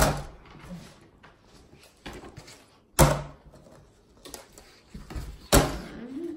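Paper plates knocked and set down on a table: three sharp knocks, one at the start, one about three seconds in and one near the end, with quieter taps and handling between.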